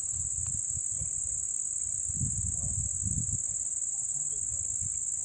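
Crickets or similar insects in the grass chirring as one steady, unbroken high-pitched drone, with a low rumble beneath it.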